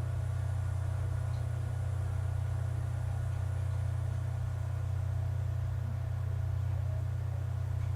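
A steady low hum with faint higher steady tones, unchanging throughout: background hum from electrical or room equipment, with no other events.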